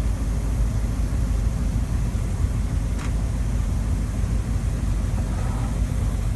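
Heavy ZIL army truck engine running steadily with a low rumble, stuck in deep mud. A single short click about three seconds in.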